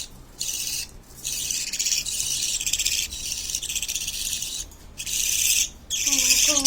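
Chicks giving rapid, buzzy, rasping begging calls in repeated stretches with short breaks while being fed by their parent.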